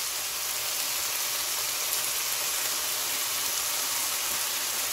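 Seaweed stems and onion frying in oil in a wok, a steady sizzle.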